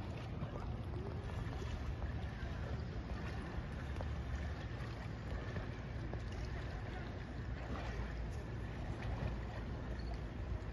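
Steady rush of a fast-flowing river, with wind rumbling on the microphone.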